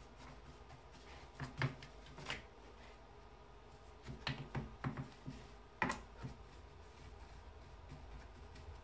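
Faint scattered clicks and scrapes of a small brush working whitening solution over and between a deer skull's teeth, in a cluster about a second and a half in and again from about four to six seconds, over a low steady hum.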